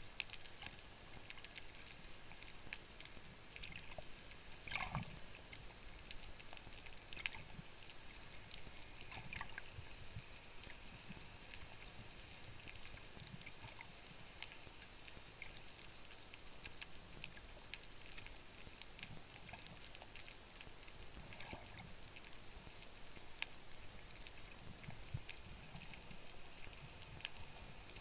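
Underwater ambience picked up by a camera below the surface: a faint steady hiss of moving water with scattered small clicks and crackles, a few louder ones about five and seven seconds in.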